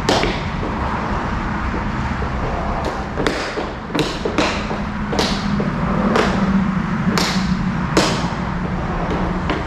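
RaceDeck interlocking plastic garage floor tiles snapping into place as they are pressed down underfoot: a series of sharp clicks, about one every half second to a second.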